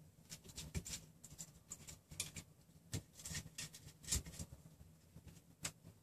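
Faint, irregular clicks and light knocks of hands handling a 3D-printer frame of steel threaded rods and plastic corner pieces, and a wooden measuring stick, with a somewhat sharper knock about four seconds in.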